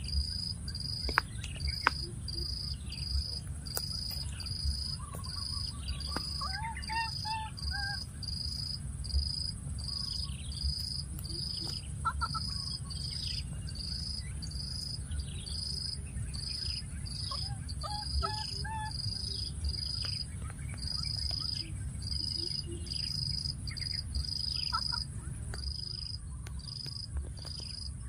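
An insect chirping a high, even note that repeats about every three-quarters of a second. Two short runs of pitched chirping calls come about six to eight seconds in and again around eighteen seconds in, over a low rumble.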